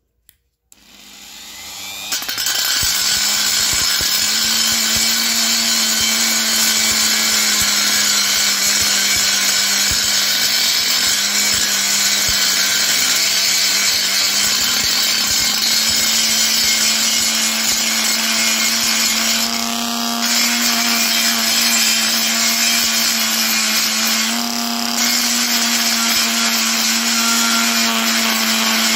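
Parkside PGS 500 A1 corded 500 W brushed die grinder switched on about a second in and winding up to speed, then running steadily with a high whine as its bit grinds rusty steel tube. The sound changes briefly twice in the last third as the load on the bit shifts.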